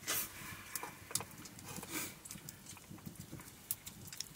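Eating sounds: chewing and small irregular clicks as rice and greens are eaten by hand from steel plates, with two brief scraping rustles, near the start and about two seconds in.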